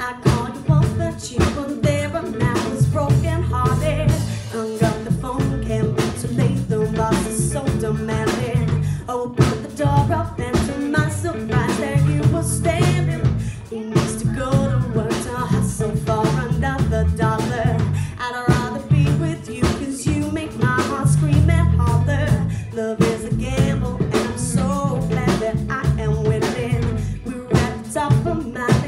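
A live band playing: a woman singing over electric guitar, bass guitar and drum kit.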